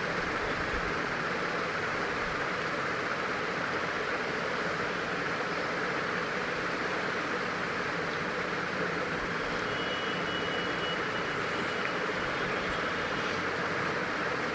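Steady airy hiss of a hot air rework station's blower running.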